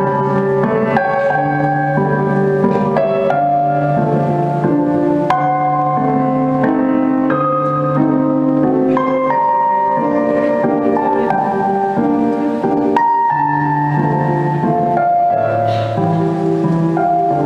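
Background music, piano and sustained instrumental notes, in a slow, gentle melody.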